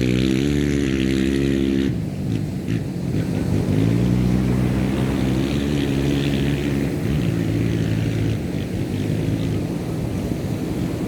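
An engine running nearby, its pitch shifting slightly and fading toward the end, over a steady wash of surf.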